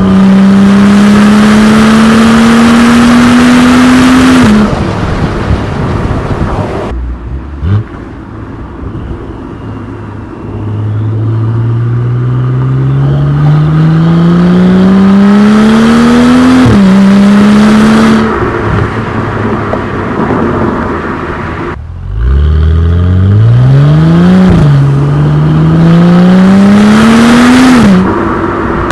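BMW N55 turbocharged inline-six with a custom exhaust and an MHD Stage 1 tune, accelerating hard three times, the pitch climbing on each pull. Upshifts drop the pitch suddenly before it climbs again, and the engine goes quieter when the driver lifts off between pulls.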